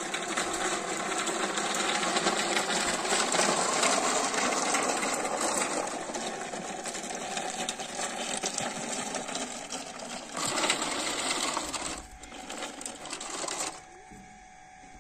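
Large plastic toy dump trucks pushed over gravel: hard plastic wheels and bodies rattling and crunching over the stones. The rattle stops suddenly near the end.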